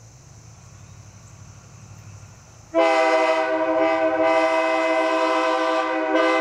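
Truck-mounted Nathan K3HA train horn sounding one loud, sustained blast that starts suddenly about three seconds in, several notes at once as a chord, with a brief dip near the end. Before the blast there is a faint low rumble.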